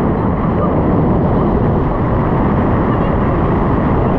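Paramotor trike's engine and propeller running steadily in flight, a loud continuous drone mixed with air rushing past.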